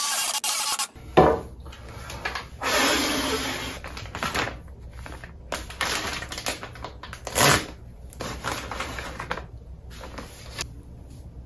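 A cordless drill whirring for about a second, then a plastic zip-top bag of rubber bands crinkling and rustling as it is handled and opened, with a few sharp clicks.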